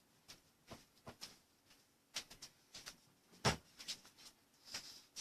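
Scattered light clicks and rustles from hands handling things on a table, irregular, with one louder knock about three and a half seconds in.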